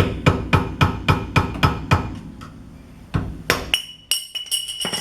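Small hammer tapping on a screwdriver against the VW Fox's rear wheel-hub dust cap to work it loose: about four quick taps a second for two seconds, two more a little after three seconds, then a high ringing tone near the end.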